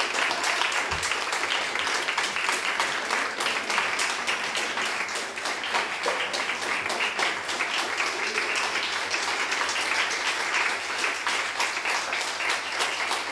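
An audience applauding steadily: many people's hand claps merging into a continuous patter.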